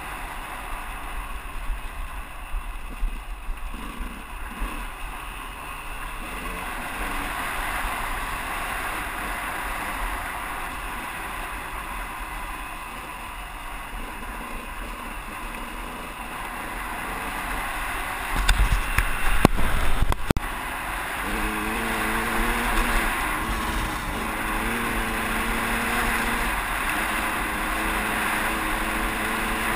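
KTM 200EXC single-cylinder two-stroke dirt bike engine running while the bike moves along rough ground, heard from a helmet camera with wind noise. About two-thirds of the way through comes a loud burst of low rumbling and knocks, after which the engine note is steadier and clearer.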